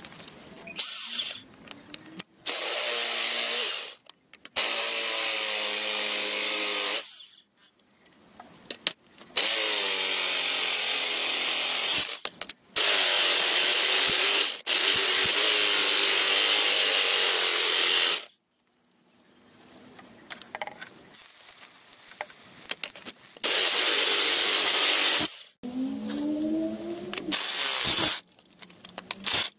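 Electric rotary hammer turning a large twist drill through a steel flat bar. It runs in bursts of a few seconds, starting and stopping again and again, and its motor whine wavers in pitch as the bit loads up in the steel.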